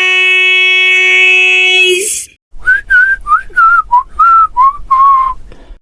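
A loud, steady, buzzy held tone lasting about two seconds and cut off sharply. After a short pause comes a short whistled tune of about eight notes, each sliding slightly in pitch.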